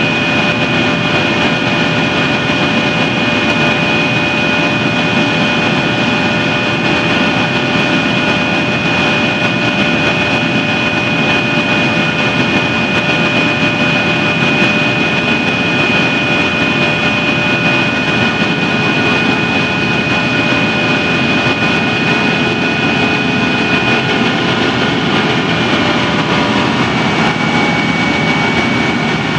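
Yak-42D's three rear-mounted turbofan engines heard from inside the passenger cabin during the climb after takeoff: a steady, loud rush with a high engine whine on top. The whine drops slightly in pitch near the end.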